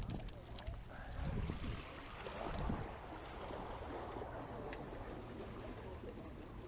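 Wind rumbling on the microphone in gusts over the steady wash of surf, with a few faint clicks.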